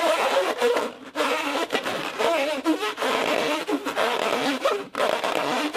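Rubber balloon worked by hand to make a moaning foley sound: wavering, voice-like squeals that rise and fall in pitch, breaking off briefly about a second in and again near the end.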